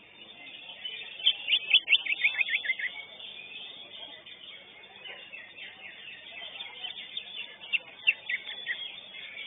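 Greater green leafbird (cucak hijau) singing in rapid runs of sharp chirps and trills. The loudest runs come about a second in and again near the end, with quieter chatter between.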